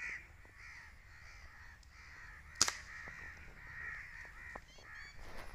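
A single sharp air-rifle shot about two and a half seconds in, the loudest sound, over a steady chorus of birds calling.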